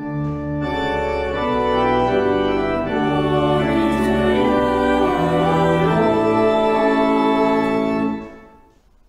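Church organ playing a short passage of sustained chords over a deep bass, the chords changing about every second, before it stops near the end and dies away in the church's echo.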